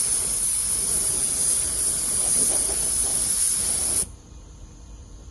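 Harbor Freight paint spray gun spraying paint with a steady hiss of compressed air, cut off about four seconds in as the trigger is let go.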